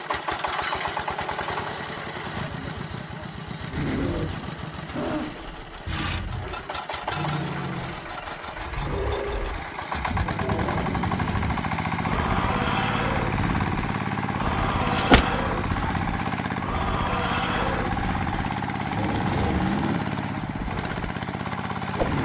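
An engine chugging in a rapid, even rhythm, then running at a steady idle. There is one sharp click about two-thirds of the way through.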